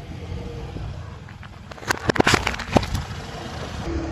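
Car idling with a low, steady rumble. About two seconds in, under a second of sharp crackling and snapping: a drink can being crushed flat under the tyre.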